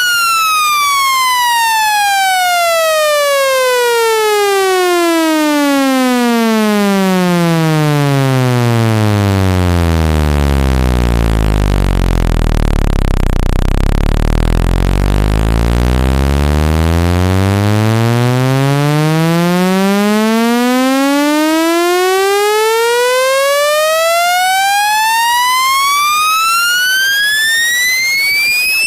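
Speaker-cleaning tone: a buzzy electronic tone that sweeps steadily down in pitch to a deep bass hum about halfway through, then sweeps back up to a high pitch, at constant loudness. This kind of sweep is played to shake water and dust out of a phone speaker.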